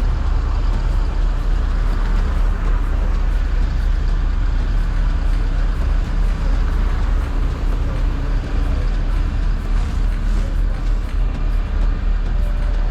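Steady low rumble of city street traffic, with engines of passing cars and buses running.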